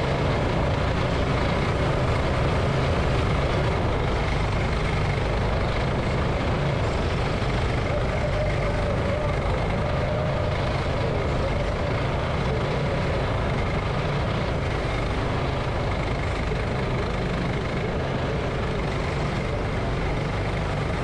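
Go-kart engine running steadily at racing speed, heard from a camera mounted on the kart itself.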